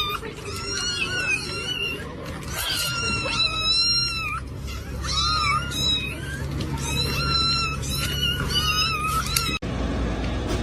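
A cat meowing over and over in short, high-pitched calls that bend up and down in pitch. The calls stop suddenly near the end as the sound cuts away.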